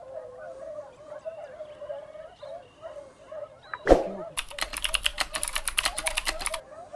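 Dogs baying faintly in the distance as they run a hare, a wavering, warbling chorus. About four seconds in comes a sudden hit, then a rapid run of typewriter-like clicks for about two seconds: a sound effect for an animated title graphic.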